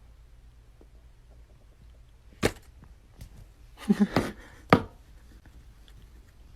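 Quiet room tone broken by a few sharp knocks or taps: one about two and a half seconds in, a quick cluster around four seconds, and one more just before five seconds.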